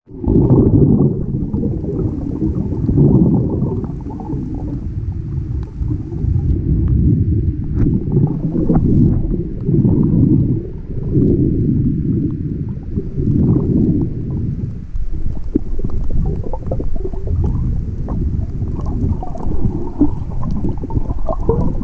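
Muffled low underwater rumble picked up by an action camera in its waterproof housing as a snorkeller swims. The rumble swells and fades every second or two, with faint scattered ticks.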